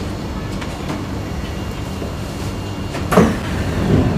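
Steady low hum inside an MRT train standing at a station, then about three seconds in a sudden clunk and rush as the train's sliding doors and the platform screen doors open.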